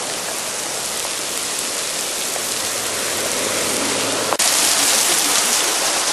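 Heavy rain mixed with small hailstones pelting concrete pavement, a dense steady hiss, with a single sharp click about four seconds in.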